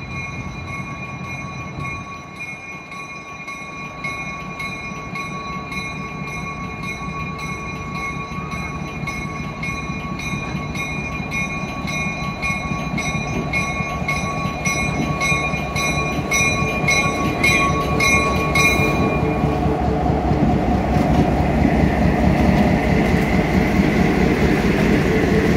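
Diesel switcher locomotive BN 3613 approaching and passing close, its engine rumble and the rolling noise of the train growing steadily louder. A bell rings at about two strokes a second over the engine and stops about three-quarters of the way through.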